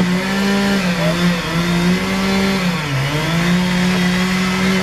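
Chainsaw running at high revs, its engine pitch sagging under load several times, most deeply about three seconds in, then picking back up.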